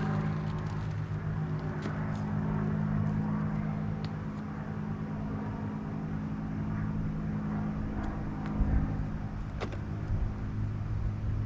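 Propeller airplane droning overhead as it circles, a steady engine-and-propeller hum; the camper takes it for a crop duster. A single sharp click sounds near the end.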